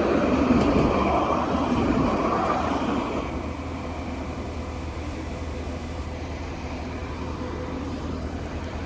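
A tram passes by; its rumble fades away about three seconds in, leaving a steady low street hum.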